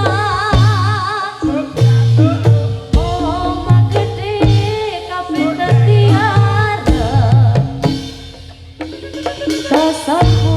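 Live Javanese gedrug folk music: a drum beating repeated strokes under a high, wavering melody line. The music thins out briefly about eight seconds in, then the full ensemble comes back in.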